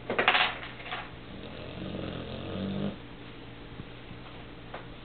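A young Cane Corso mastiff snoring in her sleep. A loud, rough breath comes right at the start, then a longer pitched snore swells for about a second and a half and cuts off sharply.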